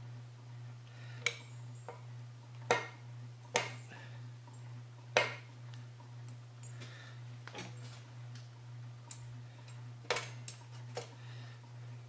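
A wrench tightening a nut on a propane burner assembly: sharp, irregular metal clicks about once a second as the wrench is set back on the nut for each turn, over a steady background hum.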